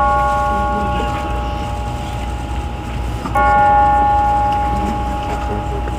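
Church bell tolling slowly for a funeral, about one stroke every four seconds: the ring of the previous stroke fades, and a new stroke sounds a little over three seconds in and rings on. A low rumble lies underneath.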